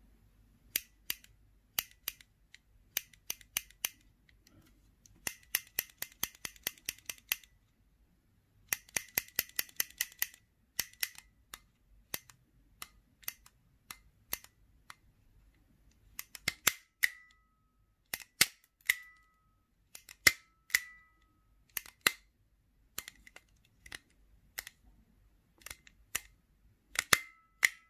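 Hand-held plastic-bodied stapler squeezed and released over and over, giving sharp mechanical clicks: quick runs of several clicks a second, then slower, louder single snaps, some of them with a brief metallic ring.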